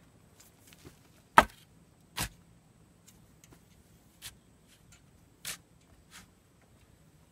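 A shovel digging into stony soil: five short, sharp scrapes and strikes of the blade against earth and rock, the loudest about a second and a half in.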